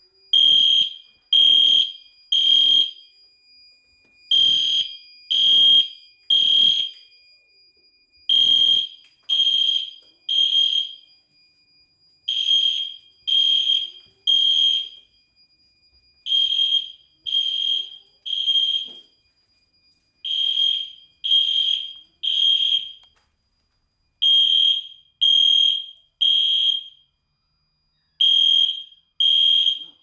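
EST Genesis fire alarm horn sounding in the temporal-three evacuation pattern: a loud, high, pitched beep three times, each about half a second long, then a pause, repeating about every four seconds. It is the fire alarm signal from a smoke detector that has been set off.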